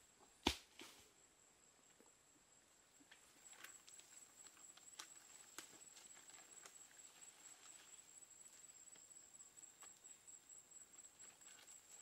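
Faint ambience: a single sharp knock about half a second in, then a steady high insect trill pulsing evenly, with scattered light taps and clicks.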